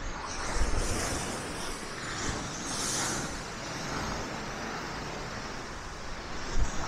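Black Sea waves breaking and washing onto the shore in repeated hissing surges, with wind rumbling on the microphone.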